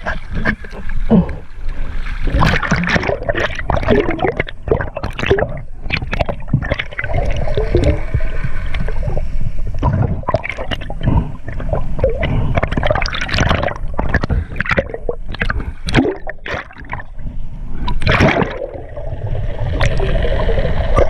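Sea water gurgling and sloshing around a swimmer's camera as it moves at and below the surface, in irregular surges.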